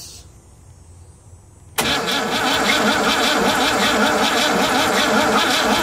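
Rambler American engine being cranked over by its starter motor in steady rhythmic pulses without catching. It starts abruptly about two seconds in and stops suddenly near the end.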